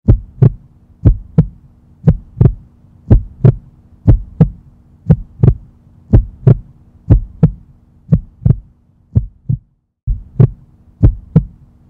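A heartbeat: paired lub-dub thumps about once a second over a low steady hum, breaking off briefly near the end and then starting again.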